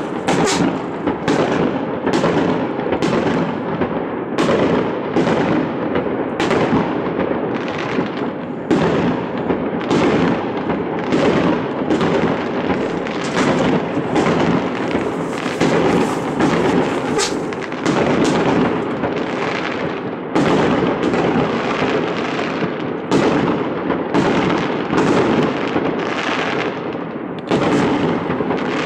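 Aerial fireworks bursting in a continuous barrage: sharp bangs about two a second over a steady din of further bursts.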